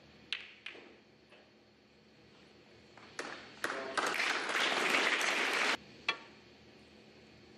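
Snooker balls clicking as the break-off is played: the cue strikes the cue ball and it knocks into the pack of reds. Then audience applause that cuts off suddenly, followed by a single sharp click of a cue striking a ball.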